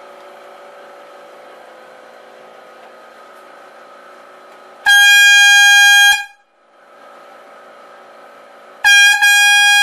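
An air horn blasts twice at full loudness, each time one steady blaring tone: a blast of just over a second about five seconds in, then a second blast starting near the end. Before the blasts a faint steady hum is heard.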